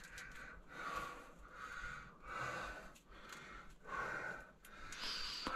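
A person breathing audibly close to the microphone, a breath roughly every second.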